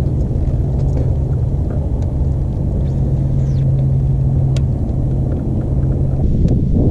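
A steady low hum over rumbling noise, the hum cutting off about six seconds in.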